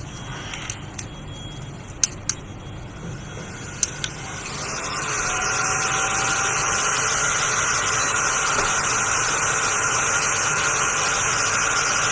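A hot air rework gun starts blowing about four seconds in, rising within a second or two to a steady rushing hiss, to dry the freshly cleaned chip. Before it, a few sharp clicks from handling tools on the bench.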